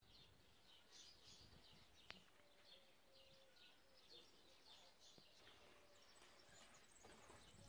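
Near silence with faint bird chirps repeating in the background, and one small click about two seconds in.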